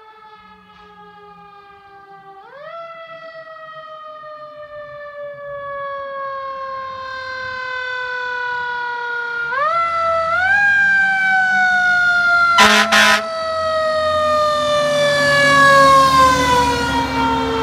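Fire engine siren approaching and passing: it winds up quickly at the start and twice more, sinking slowly in pitch after each rise, and grows steadily louder as the truck nears. The truck's engine rumble rises underneath as it passes, with two brief loud bursts a little after halfway.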